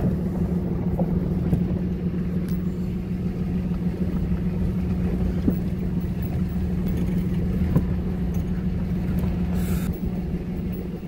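Dodge Ram 3500's turbo Cummins inline-six diesel engine running steadily as the truck drives, heard from inside the cab as a constant low drone with a rumble beneath it. A couple of faint ticks are heard about halfway through.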